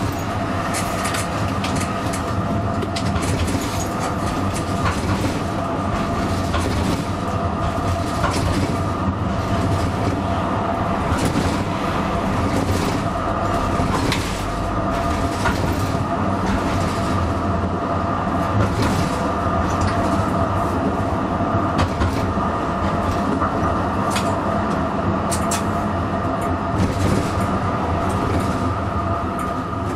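Comeng A Class tram running along its tracks, heard from the driver's cab. There is a steady running hum with a few constant whining tones, and frequent irregular clicks and knocks from the wheels on the rails.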